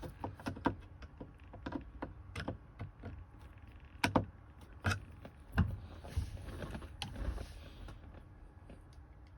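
Irregular clicks, taps and knocks of small parts being handled and fitted while the clock is screwed back into a classic car's dashboard, with a few louder knocks about four to six seconds in.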